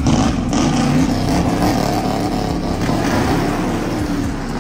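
A lifted pickup truck's engine revving, its pitch wavering up and down, loudest at the start.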